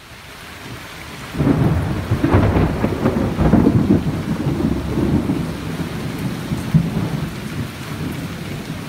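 Thunder rumbling over steady rain: the rumble builds about a second and a half in and slowly dies away.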